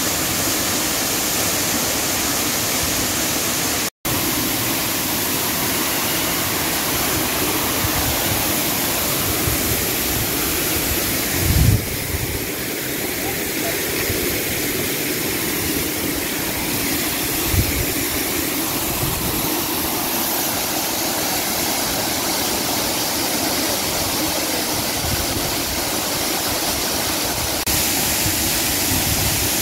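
Monsoon-swollen waterfall in full flow, a steady loud rush of falling water. It is cut by a split-second gap about four seconds in and broken by a few brief low bumps.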